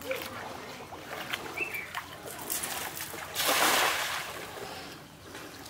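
Water splashing in shallow water, with scattered small splashes and one louder splash about three and a half seconds in that lasts under a second.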